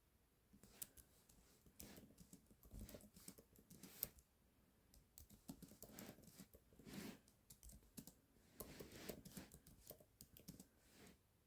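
Typing on a computer keyboard: quiet, irregular key clicks in quick runs with short pauses.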